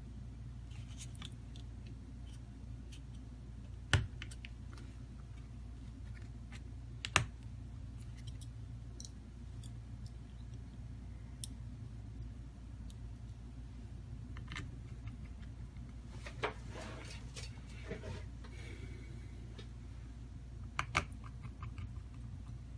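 Plastic mid-frame cover of a Samsung Galaxy A02s being pressed onto the phone, its clips snapping in with a few sharp clicks, the two loudest about four and seven seconds in, with light scraping and tapping later on.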